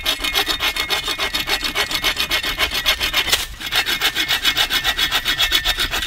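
Hand saw cutting through a wooden stick, sawing it to length for a tent stake, in quick, even back-and-forth strokes with a short break about three and a half seconds in.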